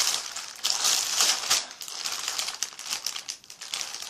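A bag full of squishy toys rustling and crinkling as it is handled and rummaged through, busiest in the first couple of seconds and lighter after.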